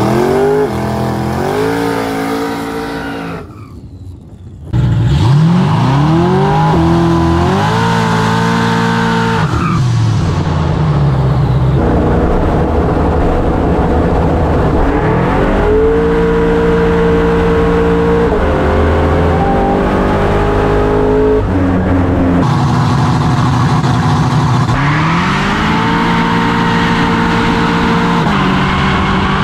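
Drag race car engine at full throttle on a launch, accelerating hard several times over: each time its pitch climbs and levels off, then drops suddenly as it shifts gear. The sound dips briefly about four seconds in before the next pull.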